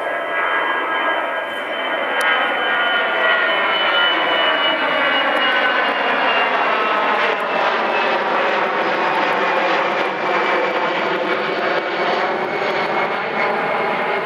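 Airbus A320 jet engines at take-off/climb thrust as the airliner passes overhead and climbs away: a loud, steady rush with whining tones that slowly fall in pitch as it recedes.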